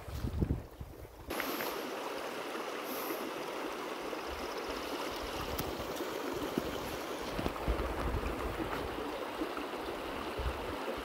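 Flowing river water: a steady, even rush of water that comes in suddenly about a second in, with occasional low rumbles underneath.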